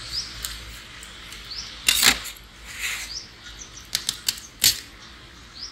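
A knife cutting into a whole watermelon and the rind cracking open: a few sharp crunching cracks, the loudest about two seconds in and more near the end. Small birds chirp briefly in the background.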